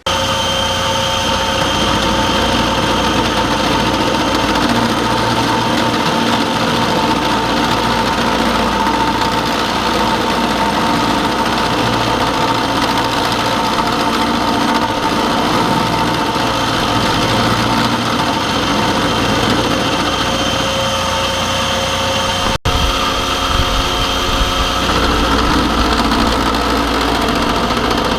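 Excello milling machine running and cutting a flat into a block of steel: a loud, steady machining noise with several held whining tones. It breaks off for an instant late on, then carries on.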